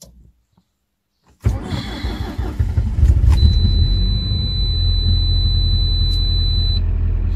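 Cold start of a Lada Granta's four-cylinder petrol engine at about −38 °C. After a short quiet spell it is cranked and catches about a second and a half in, then runs on at a steady idle. A thin, steady high-pitched tone sounds over it for a few seconds in the middle.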